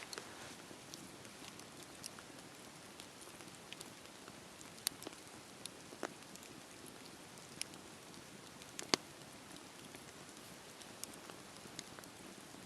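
Wood fire crackling: a soft steady rush of flames with irregular sharp pops and snaps, the loudest about nine seconds in.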